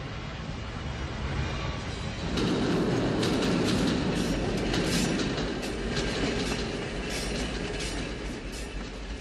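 A train running on the track: a steady rumble that swells about two seconds in, with irregular clattering and clanking of wheels and couplings over the rails.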